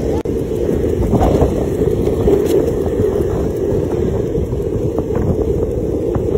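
Wind buffeting the microphone outdoors: a steady low rumble.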